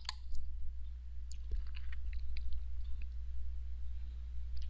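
A few sharp computer mouse clicks, about a second apart at first and another near the end, over a steady low hum.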